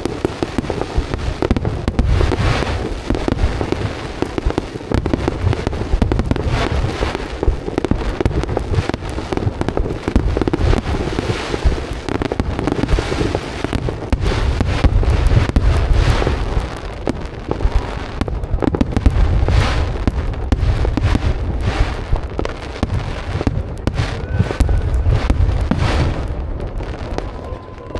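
Fireworks display: a dense, continuous barrage of booming shell bursts and crackling, dying down at the very end.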